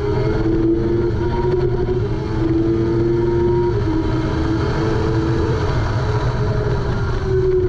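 Kawasaki ZX-6R 636's inline-four engine at high revs under hard acceleration, its note stepping in pitch a few times as it pulls through the gears, with heavy wind buffeting on the microphone.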